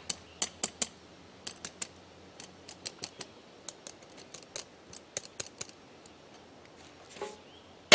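Metal rods and tubing of a homemade grill clicking and clinking as they are fitted together and adjusted, an irregular run of sharp ticks that stops about six seconds in.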